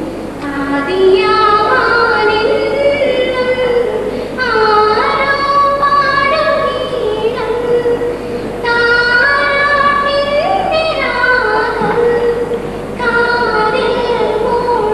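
A schoolgirl singing a solo, long held notes in phrases of about four seconds with short breaks for breath between them.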